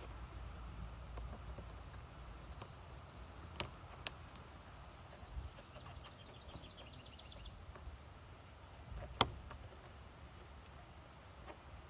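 A few sharp clicks and taps from hands and tools working the clip and clamps on an engine's air intake hose, three of them standing out. Rapid high-pitched chirping trills come and go behind them.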